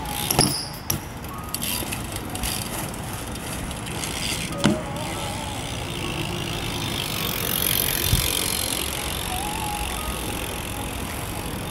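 BMX bike tyres rolling on a concrete skatepark surface, a steady rolling noise broken by sharp knocks of the bike landing and hitting the concrete, the loudest just after the start and again about four and a half seconds in.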